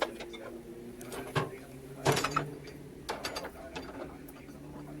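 Scattered clicks and clatter of dishes and a plastic brush being shifted about in a loaded dishwasher rack, with the loudest cluster about two seconds in.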